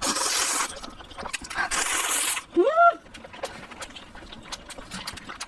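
A person slurping spicy instant noodles close to the microphone, two long slurps, then a short rising-and-falling "mm" hum and wet chewing clicks.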